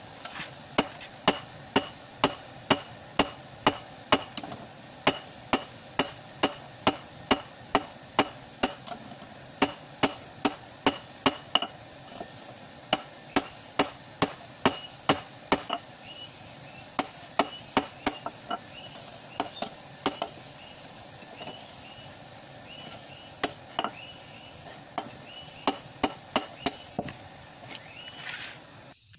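Hand hammer striking a golok machete blade held in tongs on a small anvil, sharp metal-on-metal blows about two a second in runs with short pauses, as the bent blade is forged back into shape.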